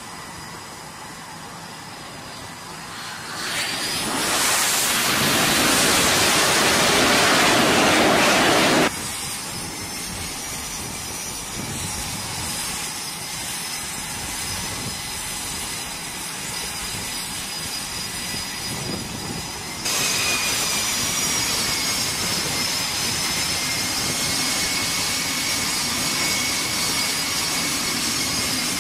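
Jet engines on an aircraft carrier's flight deck. A loud rush of jet noise swells about four seconds in as a jet comes in low over the deck, then cuts off suddenly. After that the steady high whine of F/A-18 Super Hornet turbofans running on deck is heard, stepping louder about two-thirds of the way through.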